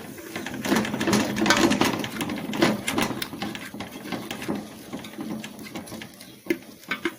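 Spoon stirring a pot of frying seasonings, scraping the pot in quick repeated strokes that thin out in the second half, with a few sharper knocks near the end.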